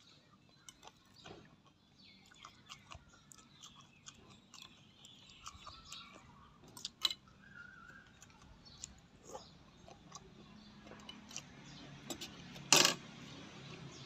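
A person eating close to the microphone: wet chewing and lip-smacking with scattered small crackles. A brief, much louder crunch or clatter comes near the end.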